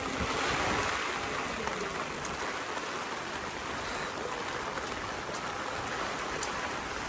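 Heavy rain falling as a steady hiss, a little louder about a second in.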